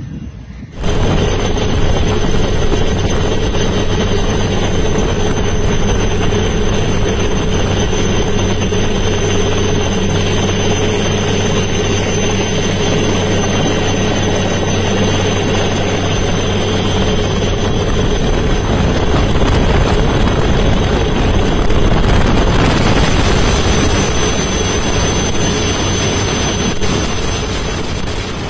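Helicopter running in flight, heard from aboard: a loud, steady drone of engine and rotor with a steady low hum, starting abruptly about a second in.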